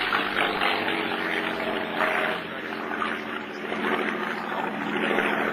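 Messerschmitt Bf 109 G-10 fighter's V12 piston engine and propeller droning steadily as it flies a display pass overhead. The loudness dips a little midway and swells again near the end.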